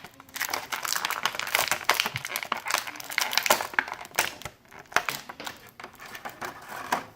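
Plastic packaging of a Hasbro Star Wars Black Series action figure crinkling and crackling in irregular bursts as the figure is handled and pulled from it.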